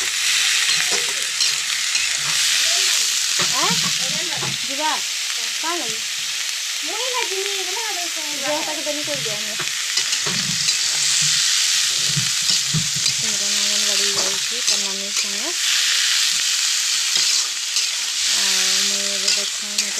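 Prawns sizzling and frying in hot oil in a metal kadai, stirred with a metal spatula that clicks and scrapes against the pan.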